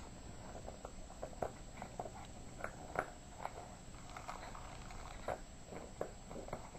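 Yorkshire terrier playing with a toy: faint, irregular clicks and taps, a few each second.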